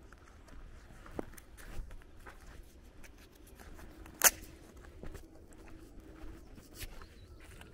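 Footsteps on a dirt and gravel lane, with scattered small clicks and one sharp, loud click a little past four seconds in, over a faint steady hum.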